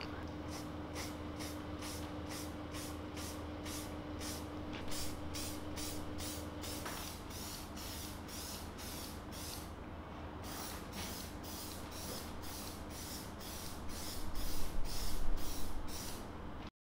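Aerosol can of clear lacquer spraying a thin coat onto plastic tail-light lenses in short, quick hisses, about three a second, with a brief pause about ten seconds in and louder passes near the end. A low steady hum runs underneath.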